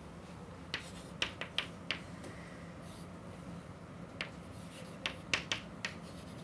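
Chalk tapping and scraping on a chalkboard as symbols are written: a quick run of sharp taps about a second in, then a second cluster of taps from about four seconds in.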